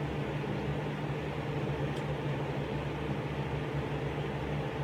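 Lasko box fan running steadily on medium speed: a low, even motor hum under a constant rush of air from the blades.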